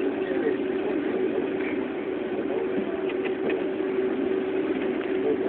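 Steady engine hum, even throughout, with a few faint clicks about three seconds in.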